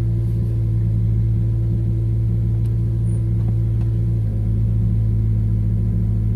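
2003 Toyota Celica GT-S's 1.8-litre four-cylinder engine idling steadily.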